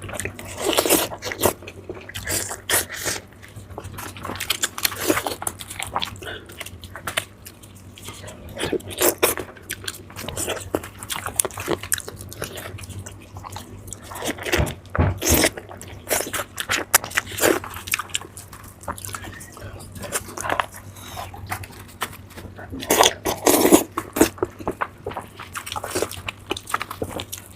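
Close-miked eating sounds: biting, chewing and wet mouth smacks on spicy pork belly, coming in irregular clusters of clicks and squelches.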